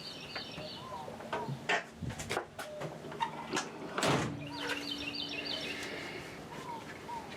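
Scattered clicks and knocks of handling at the lathe, with a louder knock about four seconds in. Birds chirp in the background.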